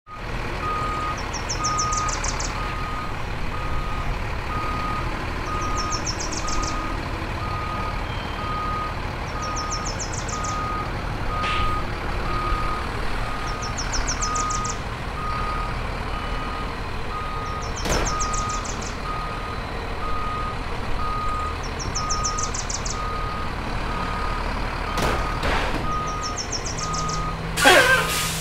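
A vehicle's reversing alarm beeps on one steady pitch, about one and a half beeps a second, over a low rumble of engine or traffic. A high trill repeats every two to three seconds, and a brief loud squeal sweeps in pitch near the end.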